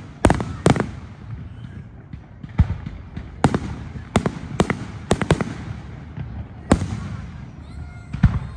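Aerial fireworks shells bursting overhead: about a dozen sharp bangs at irregular spacing, each followed by a low rolling rumble.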